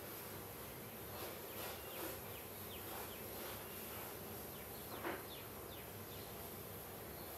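Faint room tone: a steady hiss and low hum with scattered short, high chirps that fall in pitch, one a little louder about five seconds in.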